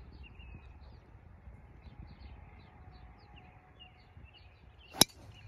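Driver striking a golf ball off the tee: one sharp crack about five seconds in. Faint bird chirps in the background throughout.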